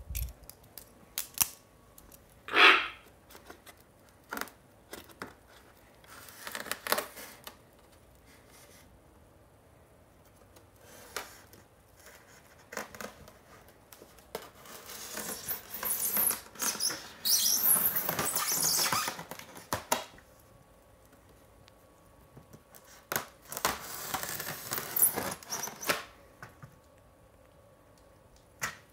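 Packaging being handled while a collectible statue is unboxed: scattered clicks and knocks, then two long stretches of crinkling and rustling from plastic and foam wrap in the box. About two and a half seconds in there is one short, loud sound.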